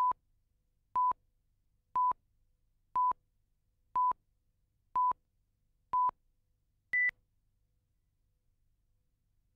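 Countdown leader beeps: short beeps at one steady pitch, once a second, seven in a row, then a single higher beep about seven seconds in that marks the end of the countdown.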